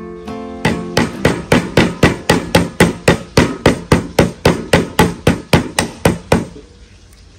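A cleaver chopping lemongrass on a round wooden chopping block: quick, even knocks, about four a second, starting a little over half a second in and stopping about a second before the end.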